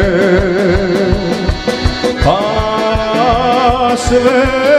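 Male folk singer holding a long note with a wide vibrato over a live folk band and a steady drum beat; about two seconds in a new note slides up and is held.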